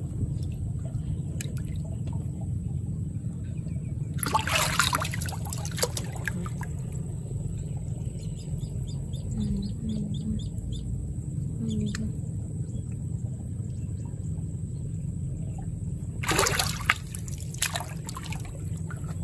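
Shallow rice-field water splashing in two short bursts about twelve seconds apart, over a steady low rumble.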